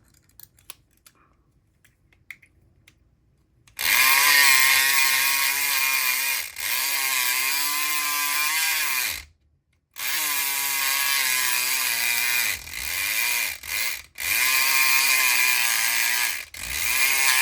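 SouthOrd E500XT 4.5-volt electric lock pick gun buzzing in bursts as its vibrating pick rakes the pins of a lock under tension, its pitch wavering as the motor is loaded. Faint clicks of the tools in the lock come first, then the gun runs from about four seconds in, stopping briefly a few times.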